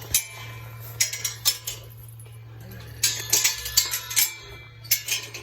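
Metal clanks and rattles, sharp and ringing, from steel livestock pens or a chute as penned cattle move and bump against them, over a steady low hum.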